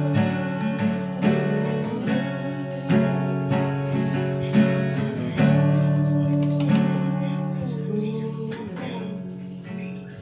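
Acoustic guitar strumming the closing chords of a song. The last chord rings out and fades over the final few seconds.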